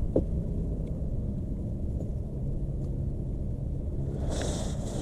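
Kayak's electric trolling motor running with a steady low hum, with a brief hiss near the end.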